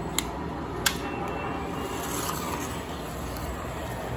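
Lionel O-gauge model trains and a slot car running on their tracks, a steady rumbling, with two sharp clicks in the first second.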